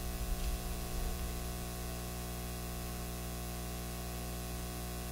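Steady background hiss with a low, even hum under it, and a few faint low knocks in the first second.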